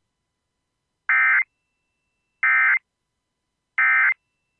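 Emergency Alert System End-of-Message (EOM) data bursts: three short bursts of buzzing digital data tones, each about a third of a second long and about 1.3 s apart. They signal that the alert message has ended.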